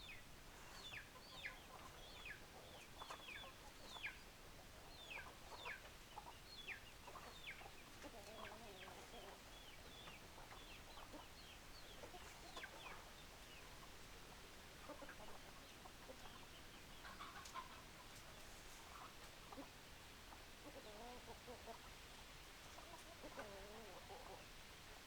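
Faint chicken calls: many short, falling high-pitched notes in the first half, then lower, wavering clucks now and then.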